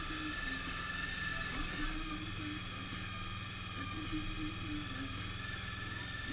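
Suzuki V-Strom DL1000's 90-degree V-twin engine running at low road speed, a steady low hum whose note grows stronger about two seconds in.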